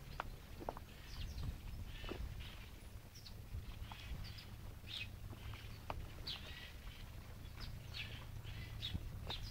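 Small birds chirping in short, repeated calls in the trees over a steady low rumble, with a few light clicks.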